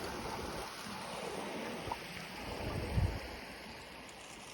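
Steady rushing of a mountain valley stream, with a soft low thump about three seconds in.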